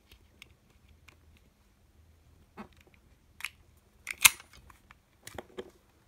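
Master combination padlock being worked by hand: faint ticks of the dial turning, then several sharper clicks and clacks, the loudest about four seconds in as the shackle is lifted and comes free of the lock body.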